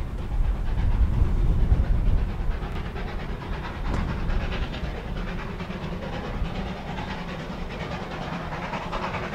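NZR Ab-class Pacific steam locomotive Ab608 and its train running, with a heavy low rumble for the first two seconds or so that then settles to a steadier sound.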